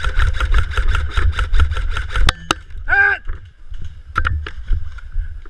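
Airsoft electric gun firing a full-auto burst of about nine shots a second for about two seconds, followed by a couple of sharp single cracks. A brief call rising and falling in pitch about three seconds in, then scattered single shots over a steady low rumble of wind and handling on the helmet camera.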